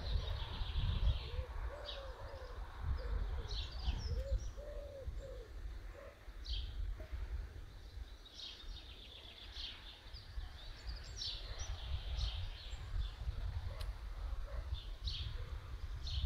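Garden birds chirping and singing in short high phrases throughout, with a pigeon cooing in a run of low, repeated calls over the first five seconds or so. A low rumble sits underneath.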